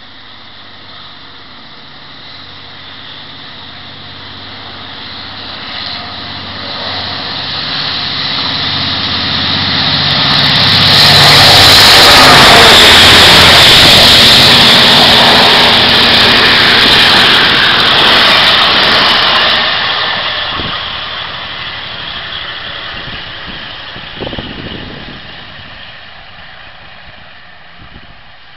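A Taiwan Railways Chu-Kuang express, hauled by a diesel-electric locomotive, passing through a station without stopping. The engine grows louder as it approaches, the sound is loudest while the locomotive and coaches go by about halfway through, then the wheels on the rails fade away.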